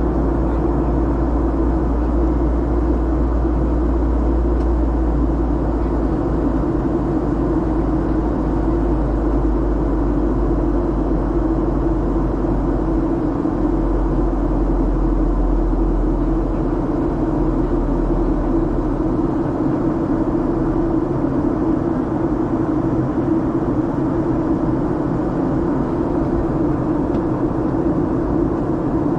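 Cabin noise of a Boeing 737-800 in flight: the steady drone of its CFM56 turbofan engines and the airflow over the fuselage. A deep rumble underneath drops away partway through.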